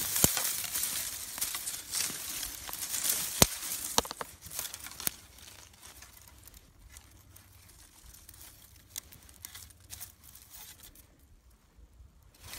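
Dry grass and dead stems crackling and tearing as a hand pulls them away from a half-buried whitetail antler shed, with a few sharp snaps in the first five seconds. After that only faint handling rustle.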